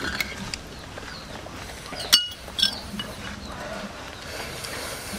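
Tableware clinking during a meal: a sharp clink about two seconds in with a brief ringing tone, and a softer one half a second later.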